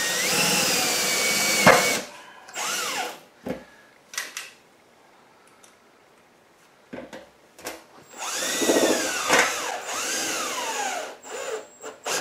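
Cordless drill driving self-drilling tek screws through the fuel pump's mounting holes into a steel gas tank. The motor runs in several spells, speeding up and slowing as the trigger is worked: a long run at the start ending in a knock, short bursts about three to four seconds in, a pause, then another long run from about eight to eleven seconds in.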